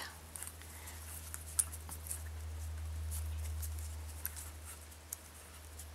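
Faint rustling and light scratchy ticks of fingers and fingernails handling silk braiding cords, over a steady low hum that swells a little about halfway through.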